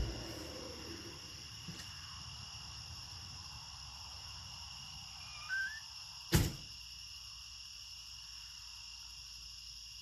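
An engine's rumble dies away at the very start. Steady high insect chirring follows. A short bird-like chirp comes about five and a half seconds in, and a sharp click about a second later.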